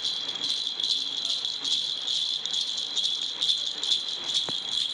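Baby's toy rattle being shaken, a continuous high rattling with repeated strokes, about two to three a second.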